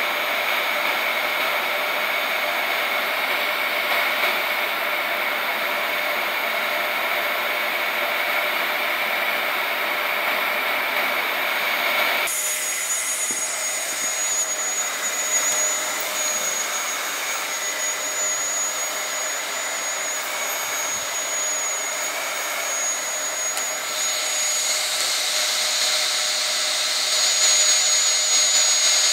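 Vacuum cleaner running steadily with a whine. About twelve seconds in its sound changes abruptly and a thin high whistle comes in. Near the end it turns hissier and a little louder.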